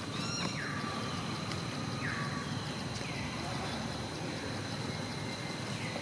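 Several short, high calls, each falling in pitch, over a steady hiss and a thin, steady high tone.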